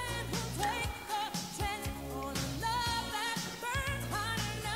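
Background pop song: a sung melody with runs and vibrato over a steady bass line and a beat.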